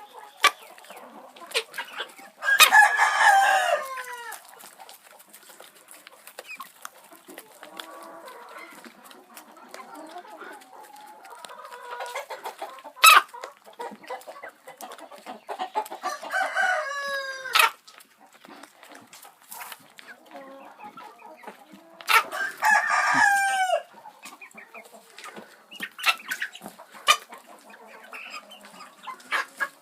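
A chicken sneezing: short, sharp sneezes scattered throughout, the loudest about 13 seconds in. Three longer crowing calls, each falling in pitch, come about 2.5, 16 and 22 seconds in, with soft clucking between them.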